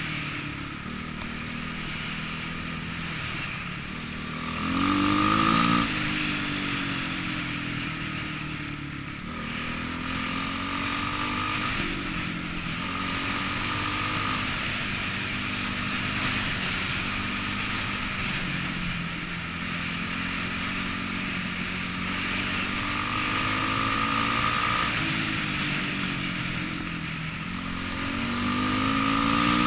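Dirt bike engine heard from the rider's helmet camera while riding, its pitch repeatedly rising and falling as the throttle is opened and eased off. The loudest rev surges about five seconds in, with another climb near the end.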